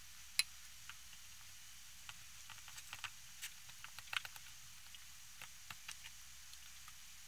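Faint scattered clicks and light taps of hands working at a tray of raw chicken, over a steady low hiss; the sharpest click comes about half a second in, and a small cluster of taps comes around the middle.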